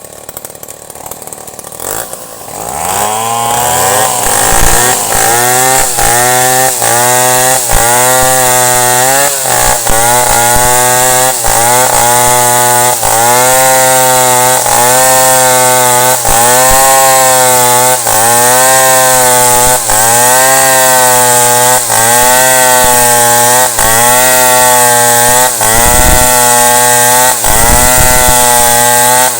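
Two-stroke chainsaw revving up about two and a half seconds in, then running hard through wood, its pitch dipping and recovering about once a second.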